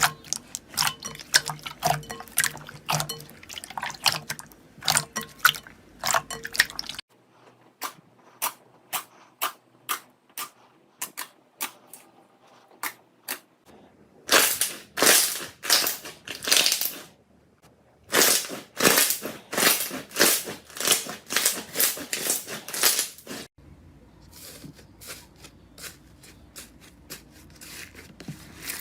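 Slime being squished and poked by hand, making rapid wet, sticky clicks and pops. The sound changes abruptly a few times, as separate clips follow one another.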